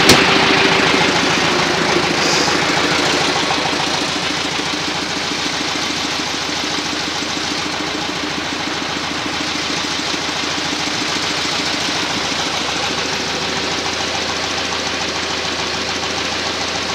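Tractor engine idling steadily with an even knocking pulse, fading a little over the first few seconds; just restarted and, by the owner's account, seemingly back to normal. A sharp click at the very start.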